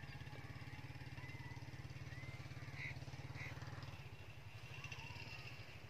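An engine running steadily, a low, fast-beating throb that drops back a little about four seconds in. Short bird chirps are heard over it.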